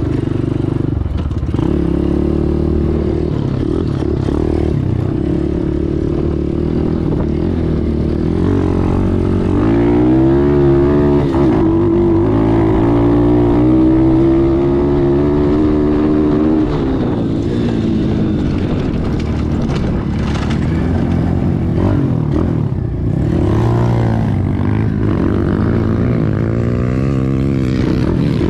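Apollo Z20 pit bike's single-cylinder engine being ridden on a throttle-response test with a freshly fitted Mikuni-type carburetor, revving up about nine seconds in, holding higher revs for several seconds, then dropping and picking up again. The engine shows a slight bog on throttle, which the rider suspects is a lean bog.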